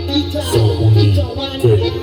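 Loud dance music with a heavy, pulsing bass line and a melody over it, played through large sound-system speaker rigs at a sound battle.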